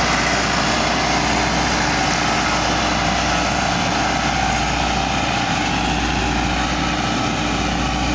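Massey Ferguson 385 tractor's four-cylinder diesel engine running steadily under load, pulling a cultivator and plank leveller through the soil.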